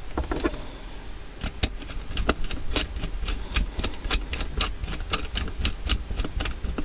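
A run of sharp, fairly regular clicks, about three or four a second, with a few knocks first, from handling a wire and tools at an electrical module's terminals.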